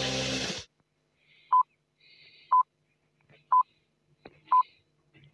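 Radio hourly time signal: four short, identical high beeps exactly one second apart, the countdown pips before the long tone that marks the hour. A stretch of electronic music cuts off just before the first pip.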